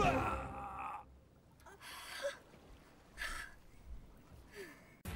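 A thud at the very start that rings on for about a second, then a woman's three short, faint gasps about a second and a quarter apart.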